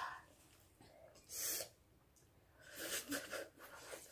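Slurping of noodles and short, hissing breaths from a person eating very spicy noodles, in a few brief bursts; the hissing intake of breath is a reaction to the burning heat.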